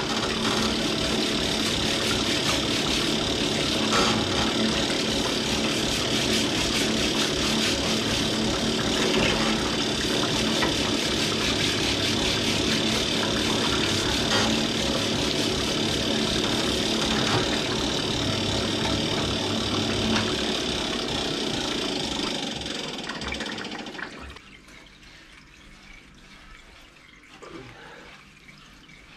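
Parts-washer pump running, with cleaning fluid flowing from its flexible nozzle over the engine block in the tank and a steady hum beneath; the flow and pump cut off abruptly near the end.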